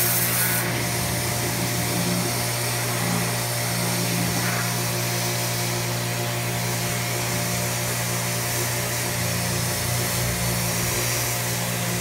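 Pressure washer running steadily while spraying: a constant motor-and-pump hum under the hiss of the high-pressure water jet from a short adjustable nozzle.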